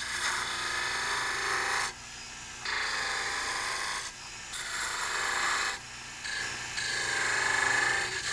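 A 3/4-inch spindle gouge cutting a spinning wooden spindle on a mini lathe, worked back and forth between parting cuts. It makes about four rasping passes of a second or two each, with short breaks between them. The lathe's motor hums faintly underneath.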